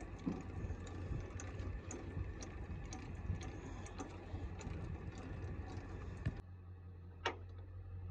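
Faint, steady low vehicle rumble with scattered light ticks and clicks. About six seconds in it drops abruptly to a quieter hum, with one sharp click a second later.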